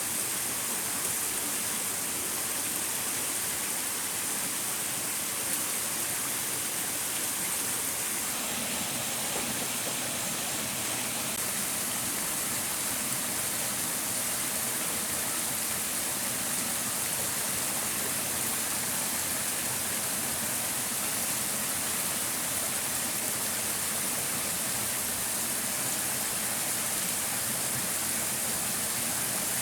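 Stream water running steadily over stones, a continuous rushing; it turns fuller and deeper from about eight seconds in.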